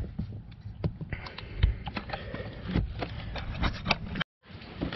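Irregular knocks, clicks and rustling from hands moving the removed blower motor, a towel and tools around a car's passenger footwell. It cuts off abruptly about four seconds in.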